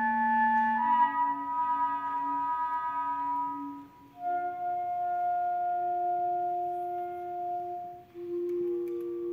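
Clarinet and vibraphone with string orchestra playing long sustained notes in a slow passage of a contemporary concerto grosso. The notes change about a second in, and after brief breaks about four and eight seconds in, new long, pure-sounding tones are held.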